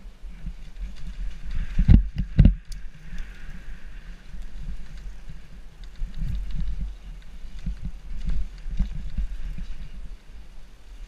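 Mountain bike jolting down a rough dirt trail, the frame and tyres rattling and thudding over roots and bumps, with two hard knocks about two seconds in.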